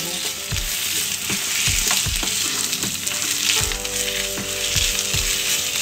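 Wooden spatula stirring and turning thick kochu shak (taro-leaf greens) with prawns in a non-stick wok as it sizzles in the pan, with a soft knock of the spatula against the pan about twice a second.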